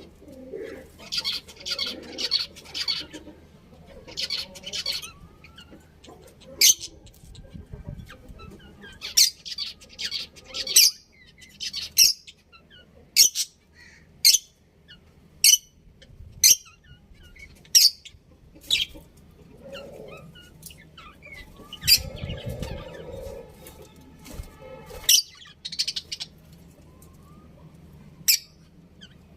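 Budgerigars chirping in quick clusters, then giving sharp, short calls every second or two.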